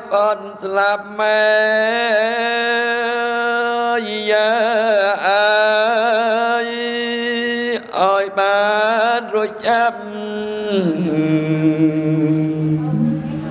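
A male Buddhist monk's solo voice chanting Khmer smot (chanted Buddhist verse) into a microphone: long held notes with wavering, ornamented turns, broken by a few quick breaths. Near the end the voice drops to a lower held note.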